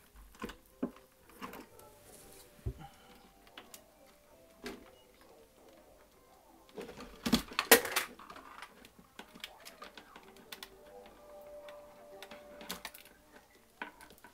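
Scattered light clicks and knocks, with a louder cluster of knocks about seven to eight seconds in.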